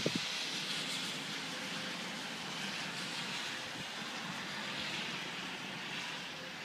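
Cars passing on a wet road, their tyres hissing on the wet surface, with rain falling steadily; the hiss swells and slowly ebbs. A couple of brief low knocks sound right at the start.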